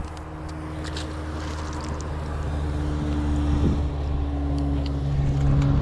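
An engine running with a steady low hum that keeps one pitch and grows steadily louder as it comes closer.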